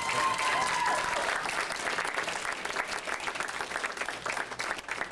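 Congregation applauding, dense clapping with a voice whooping over it at the start; the clapping thins out toward the end.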